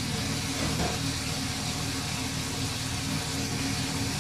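Steady hum and hiss of chicken pieces cooking in hot oil in a pot on a gas stove, with a kitchen exhaust fan running.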